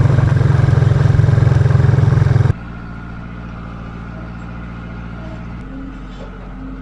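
Farm vehicle engine running loudly for about two and a half seconds, then dropping suddenly to a quieter, steady running sound.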